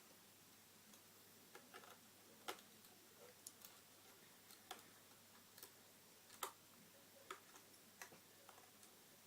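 Faint, irregularly spaced small clicks and taps as the RAM access cover and its screws are fitted back onto the base of a mid-2011 iMac, the loudest about two and a half and six and a half seconds in.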